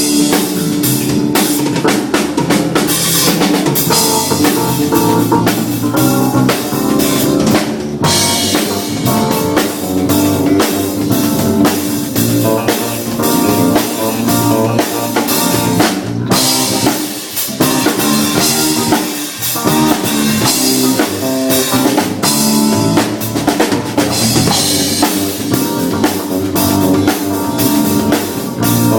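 Music driven by a drum kit: a steady run of kick, snare and rim hits over bass and other pitched instruments.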